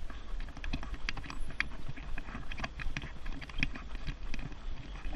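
Running footfalls on a paved path in a quick, even rhythm, over the steady low rumble of a Thule jogging stroller's wheels rolling along the pavement.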